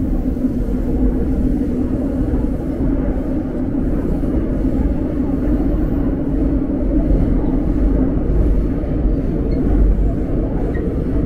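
Seoul subway train running, a loud steady rumble with no letup.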